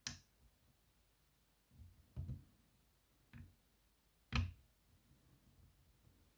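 Lock pick and tension wrench working the pins of a BKS 88 pin-tumbler cylinder: a handful of sharp, separate clicks with quiet between them, the loudest about four seconds in.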